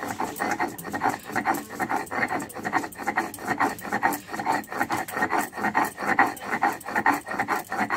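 A stone roller rubbed back and forth over a flat chiselled grinding stone (shil-nora), grinding spice into a wet paste: rough stone-on-stone scraping in quick strokes, about three or four a second, stopping abruptly near the end.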